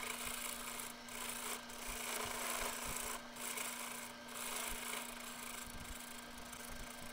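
Hand turning tool cutting a spinning wooden handle blank on a wood lathe, scraping off shavings in several passes that swell and fade, over the lathe's steady hum.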